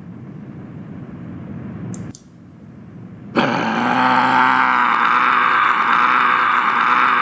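A loud, long roar that starts suddenly about three seconds in and holds steady, after a low rumble that swells and cuts off about two seconds in.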